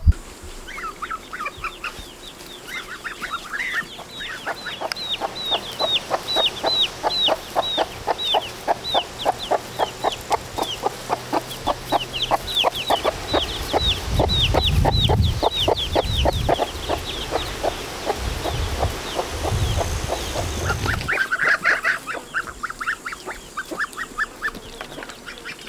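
Chicks peeping in a rapid run of short, down-slurred cheeps, several a second, with clucking poultry in the yard. There are bursts of low rumble in the middle, and a twittery chatter near the start and again near the end.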